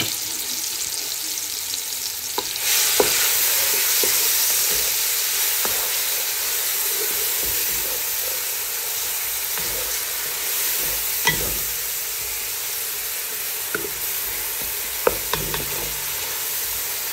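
Chopped onion with cumin, whole black peppercorns and nigella seeds sizzling in hot oil in a wok, being fried to light golden while a wooden spatula stirs it. The sizzle grows louder about two and a half seconds in, with a few sharp taps of the spatula on the pan.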